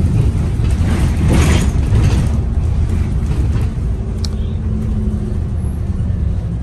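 Bus engine and road rumble heard from inside a moving bus: a loud, steady low drone with a faint engine hum on top.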